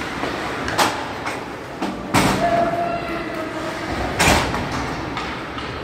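Ice hockey play in an arena: a steady scraping rink noise broken by three sharp knocks, the loudest about two and four seconds in.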